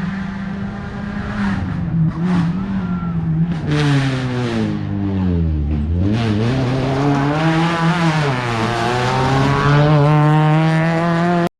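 Rally car engine through a hairpin. The engine note holds steady, then drops low about halfway as the car slows for the bend. It climbs again as the car accelerates away, with a brief dip like a gear change, then climbs once more.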